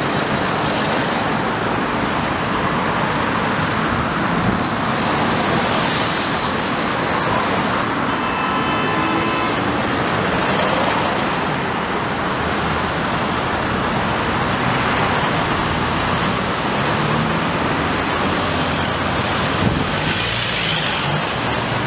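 Steady traffic on a busy road: cars and motorcycles driving past close by, each passing vehicle swelling the tyre and engine noise. Partway through, a high-pitched tone sounds for a couple of seconds.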